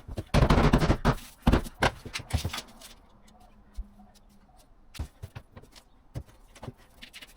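Knocks and shuffling scrapes of laminate floor boards being handled and fitted on the floor: a dense run of clatter in the first couple of seconds, then a few scattered single knocks.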